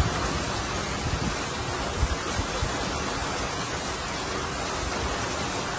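Heavy tropical rain falling as a steady, even hiss, with a few brief low thumps near the start and about two seconds in.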